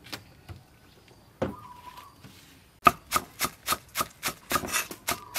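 Kitchen knife chopping green onions on a wooden cutting board, in quick even strokes of about four a second that start about halfway through. A single knock comes a little earlier.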